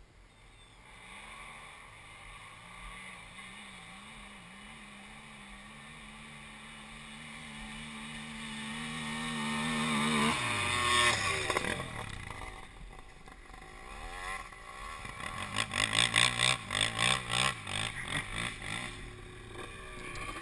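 Quad (ATV) engines running as the machines climb a sand hill, growing steadily louder, then one passes close with its pitch dropping about ten seconds in. Near the end an engine revs in quick repeated blips of the throttle for a few seconds.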